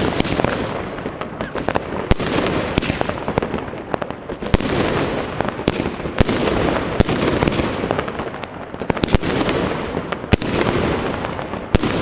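Fireworks going off: sharp bangs at irregular intervals over a continuous rushing noise.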